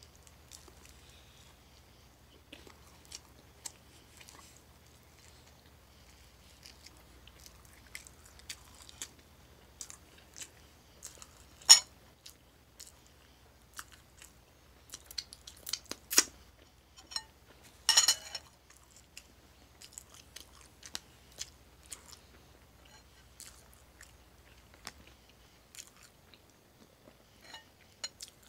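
A person chewing and biting a toasted sardine, boiled egg and avocado sandwich close to the microphone, with irregular wet mouth clicks. A few sharper clicks stand out, the loudest near the middle.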